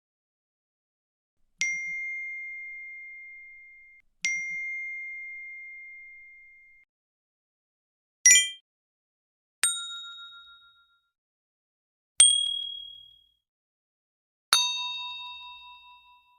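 A series of six separate ding sound effects with short silences between them: two identical long-ringing dings, then a brief bright chime and three more dings of different pitches, each struck sharply and fading away.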